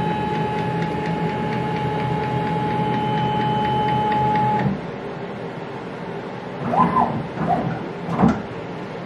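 Avid CNC router's stepper-motor drives whining steadily with a low hum as the gantry moves the spindle into place over the touch plate, cutting off about five seconds in. A lower background hum follows, with a sharp click near the end.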